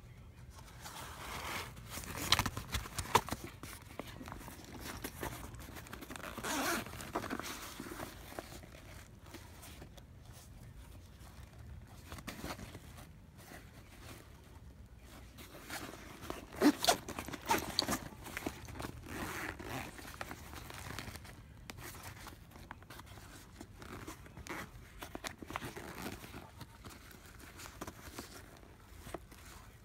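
A hand rummaging inside a fabric waist-and-shoulder bag: rustling of the fabric and its contents with irregular sharp clicks, loudest about two seconds in and again around sixteen to eighteen seconds in.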